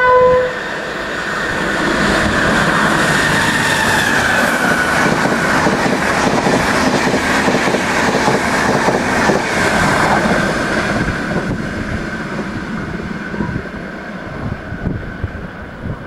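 Irish Rail 201 class diesel-electric locomotive passing at speed with a Mk4 intercity train. The last half-second of its horn sounds at the start, then comes the loud rush and wheel clatter of the locomotive and carriages going by, fading over the last few seconds as the train pulls away.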